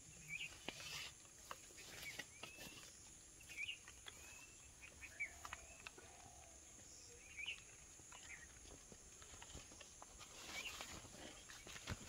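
Red-breasted parakeets feeding on sunflower heads: faint, short chirps come every second or two, with scattered sharp clicks in between.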